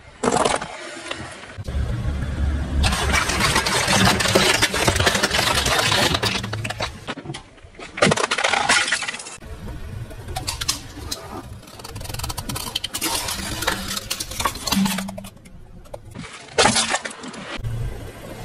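A car's engine running as its tyres roll over small objects, with cracking and crunching as they break, across several short takes. A sudden loud crack about eight seconds in.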